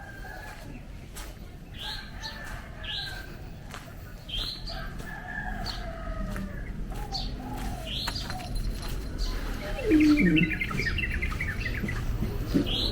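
Birds chirping outdoors: short rising calls repeated every second or two, with a louder, lower call that falls in pitch about ten seconds in.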